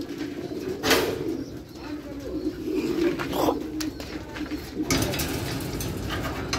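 A loft full of homing pigeons cooing together in a continuous, overlapping murmur. A sharp knock comes about a second in.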